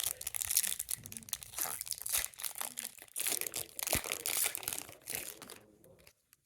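Foil trading-card booster pack wrapper being handled and torn open: dense crinkling and tearing that stops about six seconds in.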